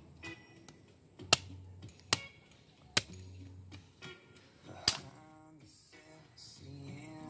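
Knife chopping at a thin wooden stick braced on a stone: four sharp knocks, irregularly spaced about a second apart, under background music.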